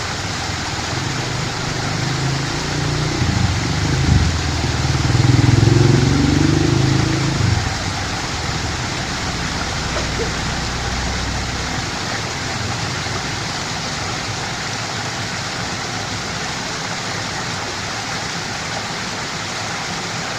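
Small river flowing steadily in the rain, an even rushing hiss of water. A low rumble swells and fades between about two and eight seconds in.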